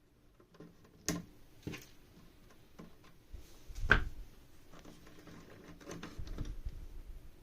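Handling noise: a few sharp clicks and knocks, the loudest about four seconds in, then low irregular bumping and rustling near the end.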